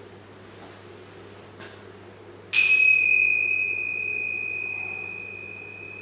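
A small bell struck once about two and a half seconds in, giving a clear high ringing tone that fades slowly over the following seconds.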